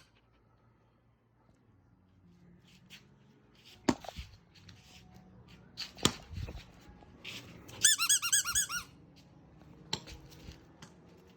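Squeaky dog-toy ball squeaking in a quick run of about seven squeaks as a dog bites on it, after a few scattered knocks and thumps.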